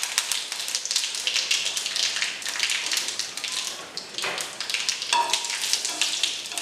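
Hot oil sputtering and crackling in a tempering as curry leaves and a dried red chilli fry in it, a dense run of fine pops over a steady hiss.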